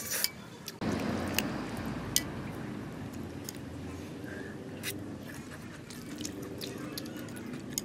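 Eating crispy fried noodles: chewing and crunching, with sharp clicks of a metal spoon and chopsticks against a metal wok. A steady low background noise comes in about a second in and holds.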